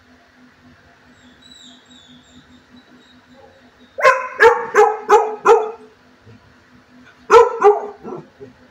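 Large dog barking in two bursts: about five barks in quick succession around the middle, then three more near the end.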